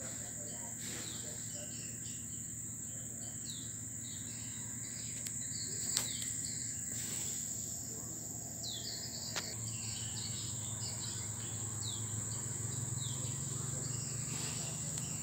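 Steady high-pitched insect drone, with short falling chirps of small birds recurring through it and two sharp clicks, about six and nine seconds in.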